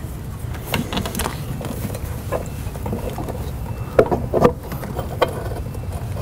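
Scattered clicks and light metal knocks from an AC accumulator and its hose fittings being handled and fitted by hand in an engine bay. The loudest cluster comes about four seconds in, over a steady low background rumble.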